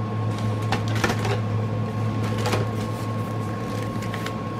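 Scattered light clicks and rustles of the kit's contents and packaging being handled, over a steady low electrical hum with a faint steady high whine.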